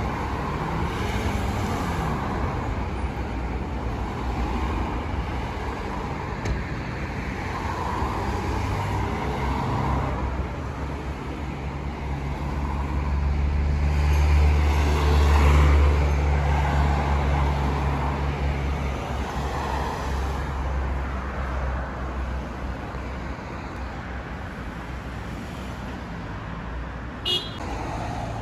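City street traffic: a steady wash of passing cars, with a heavy vehicle's low engine hum swelling to its loudest about halfway through and then fading as it passes. A short, high toot sounds near the end.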